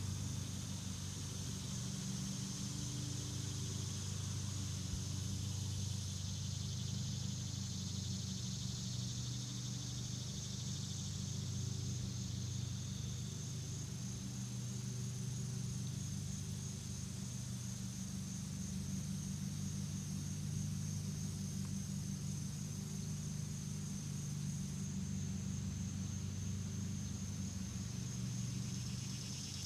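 A steady low machine hum, like a motor or engine running unseen, with a continuous high insect trill over it.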